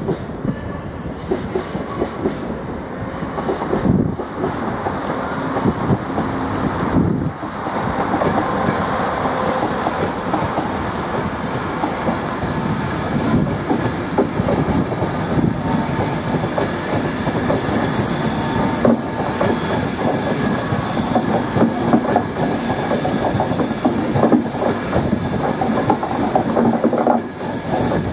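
LNER InterCity 225 train, Mark 4 coaches led by driving van trailer 82222 with Class 91 electric locomotive 91119 at the rear, running slowly through the platform: wheels clacking over the rail joints with steady rumbling. A high squeal is heard, stronger in the second half.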